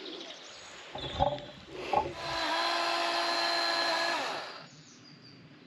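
Chainsaw revving up, running steadily at full speed for about two seconds while cutting into a big fig tree's trunk, then dropping back. Before it, a few knocks and a low rumble.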